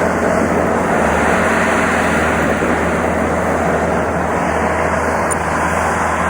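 A large engine running steadily with a continuous mechanical rumble, typical of earth-moving machinery working on a pond build.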